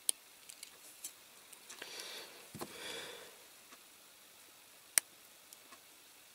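Two soft sniffs or nasal breaths about two and three seconds in, among quiet small clicks of tweezers and fingers handling a diecast toy car, with one sharper click near five seconds.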